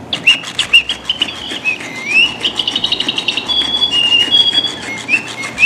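Battery-powered flapping-wing sparrow cat toy playing bird chirps and whistled glides, with a short fast trill about two and a half seconds in, over the rapid, even clicking of its wing-flapping mechanism.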